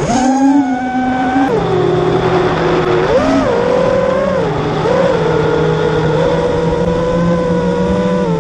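Armattan Marmotte FPV quadcopter's brushless motors and propellers whining in flight, heard from the onboard camera. The pitch drops about a second and a half in, then rises and falls several times with the throttle.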